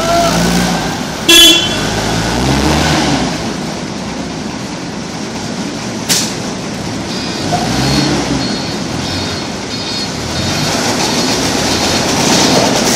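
Forklift engine running and working, its pitch rising and falling twice, with one short horn toot about a second in, the loudest sound here, and a sharp knock about six seconds in. From about seven seconds a high beep repeats roughly twice a second, the reversing alarm as the truck backs up.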